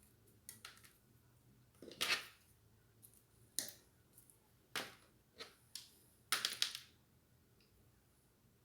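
Scattered handling noises: a rustle about two seconds in, then several single clicks and taps and a short cluster of them a little past the middle.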